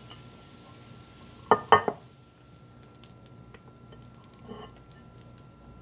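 A ceramic dinner plate set down on a wooden table, clattering twice in quick succession about a second and a half in. A faint knock follows a few seconds later.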